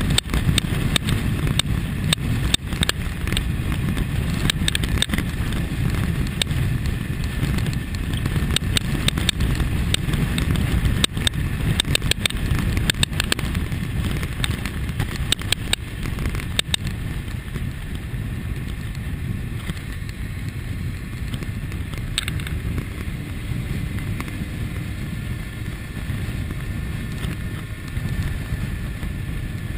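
Wind rushing over the camera microphone on a moving 2001 Kawasaki ZX-6R, with the bike's inline-four engine running underneath at steady cruising speed. Frequent crackles ride on the rush through the first half and thin out after about seventeen seconds.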